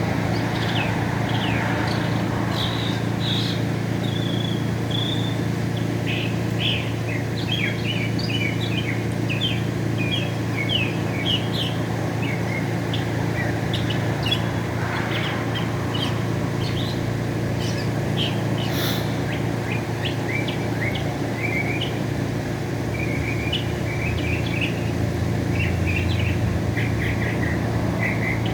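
Northern mockingbird singing a long run of varied short phrases: quick chirps, slurred notes and rapid repeated notes, with a fast series of repeated notes near the end. A steady low rumble runs underneath.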